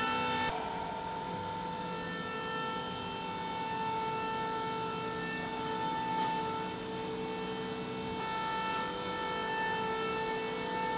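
A steady, high-pitched machine whine made of several tones sounding together. Its pitch pattern shifts slightly about half a second in.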